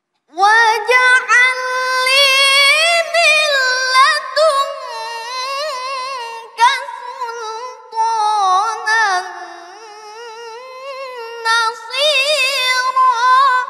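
A boy reciting the Quran in the melodic tilawah style, unaccompanied. His high voice sings long held phrases with wavering, ornamented turns, broken only by brief breaths.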